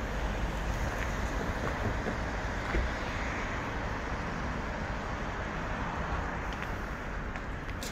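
Steady outdoor rumble of wind on the microphone and road traffic, with no distinct events.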